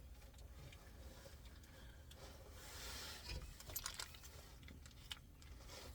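Near silence with a low hum and a few faint clicks and rustles of handling, a little past halfway and again near the end.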